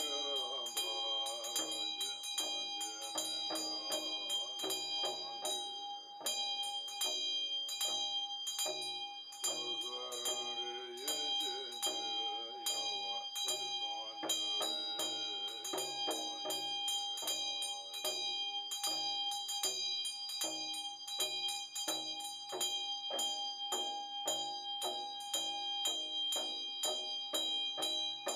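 A chöd damaru, the large double-headed Tibetan hand drum, rattled in quick, steady strokes while a Tibetan hand bell rings continuously, with a man's chanting voice heard at times.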